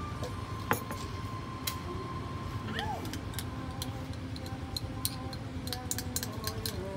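Light clicks and taps of a small milk can against a glass measuring cup as milk is poured into espresso, over a steady street hum with faint music.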